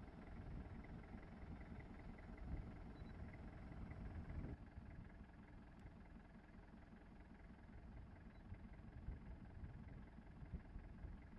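Faint, steady low rumble of an idling engine.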